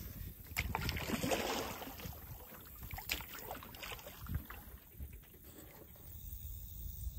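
Light knocks and rattles in an aluminum canoe, over low wind rumble on the microphone. A few sharp knocks come in the first half, then it goes quieter.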